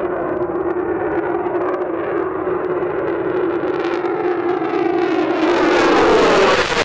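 Jet engines of an F-22 Raptor at takeoff power on its takeoff roll: a steady jet roar with a droning tone. It swells and turns harsher and brighter about five seconds in as the fighter rolls closer.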